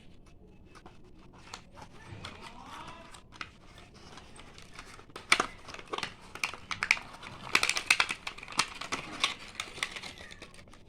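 Plastic and cardboard packaging being handled as a smartwatch is unboxed: crinkling and rustling with many sharp clicks and taps, busiest in the second half.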